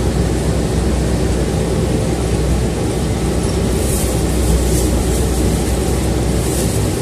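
City bus running, heard from inside the cabin: a steady rumble of engine and road noise, with a few short hisses in the second half.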